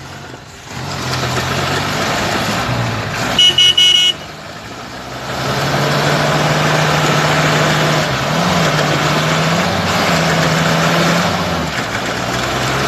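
A vehicle horn sounds in one short loud blast about three and a half seconds in. From about five seconds on, an off-road vehicle's engine runs steadily with a noisy rush, its revs rising briefly a couple of times.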